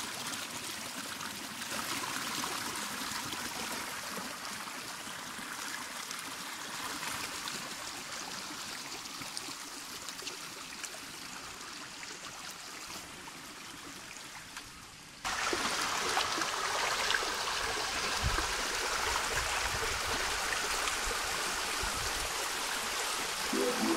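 Shallow rocky stream flowing over stones and small cascades: a steady rush and trickle of water. About fifteen seconds in it abruptly becomes louder and fuller.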